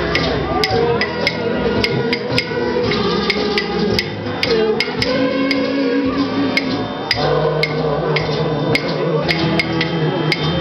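A kitchen band playing a tune: a buzzy melody on kazoos over guitar and a low bass line, with sharp percussive taps keeping the beat about twice a second.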